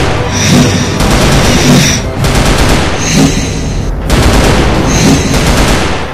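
Automatic rifle fire in three long bursts of rapid shots, each about two seconds, over dramatic background music.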